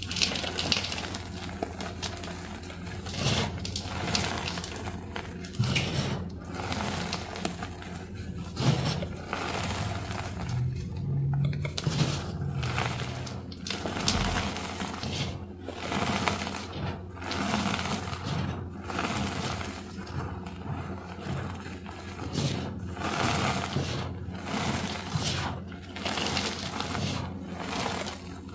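Loose gym chalk powder squeezed and packed between two hands, crunching with each squeeze and crumbling back into the bowl, about one squeeze a second.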